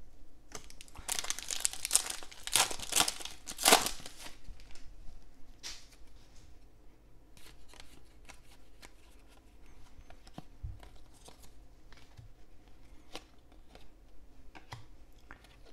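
A trading card pack's wrapper being torn open and crinkled, loudest in the first few seconds. After that the cards are handled quietly, with faint rustles and light ticks as they are flipped through.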